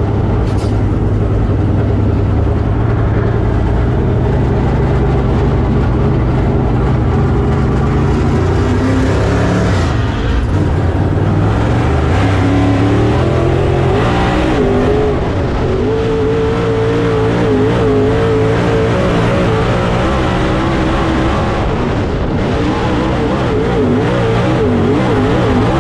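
Dirt late model race car's V8 engine heard from inside the cockpit. It runs steady and low at first, climbs in pitch about eight to ten seconds in, then wavers up and down with the throttle through the corners at racing speed.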